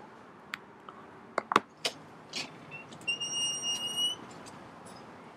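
A few small clicks of a remote control's buttons being pressed, then a single high electronic beep lasting about a second.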